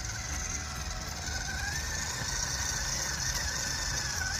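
Electric motor and gearbox of a WPL C24 KM RC crawler whining under load as it climbs a steep, loose hill in first gear, low range. The whine rises and falls gently with the throttle.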